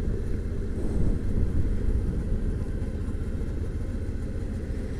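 Steady low rumble of a vehicle on the move, mostly road and wind noise.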